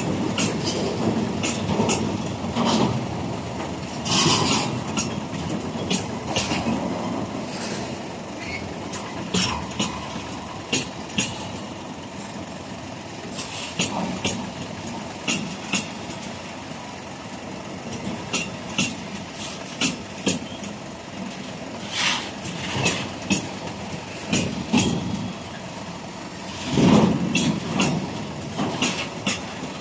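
Freight train of rail tank wagons rolling past: a steady rumble of wheels on track with irregular sharp clicks as the wheels cross rail joints, and a louder clatter near the end.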